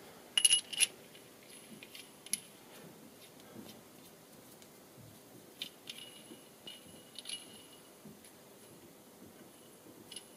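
Small machined steel parts clinking as a flanged steel nut is handled and threaded onto a steel spindle. There are a handful of light clinks spread through, some with a brief high metallic ring.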